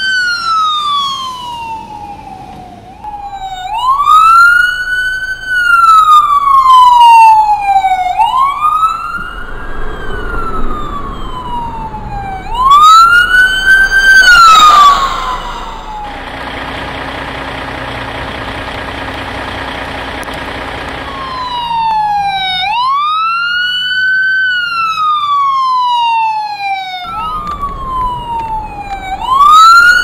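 Emergency-vehicle electronic siren in wail mode: a tone that rises quickly and falls slowly, repeating about every four seconds. For several seconds in the middle it gives way to a steadier, lower hum with hiss.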